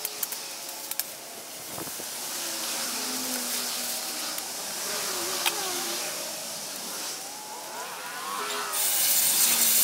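Leaves and branches rustling and scraping as overgrown brush is cut back and pushed through by hand, with a loud burst of rustling near the end.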